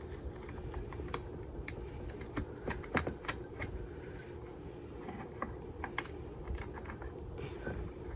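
Irregular small clicks and taps of metal parts being handled as the nut is screwed back onto a ceiling fan's pull chain switch, with sharper clicks about three and six seconds in, over a steady low hum.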